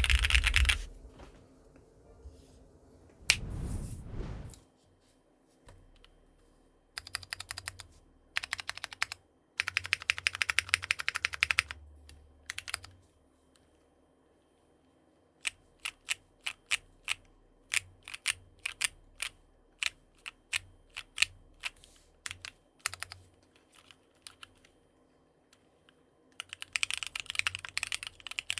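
Typing on a NEO65 65% mechanical keyboard with AKKO Sponge tactile switches: runs of fast keystrokes alternate with slower, separate key presses and short pauses. A single heavier thump comes about three seconds in.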